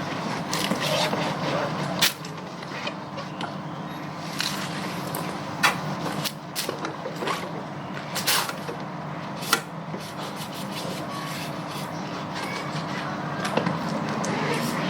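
Motorcycle being washed: a steady machine hum runs under scattered sharp knocks and clatters, the loudest about two, six, eight and nine and a half seconds in.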